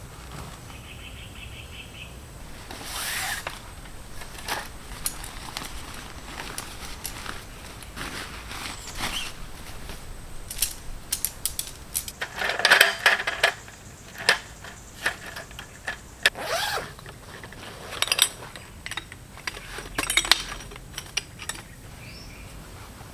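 Camping gear being handled during tent setup: irregular rustling, clicks and rattles, with the loudest clattering about halfway through and a few sharp knocks later on.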